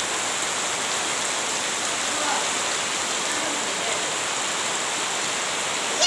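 Heavy rain falling steadily on a waterlogged yard: an even, unbroken hiss.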